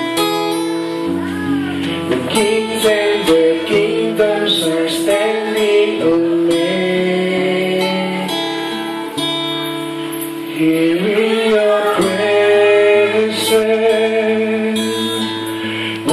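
A man singing a slow worship song, accompanied by his own strummed acoustic guitar.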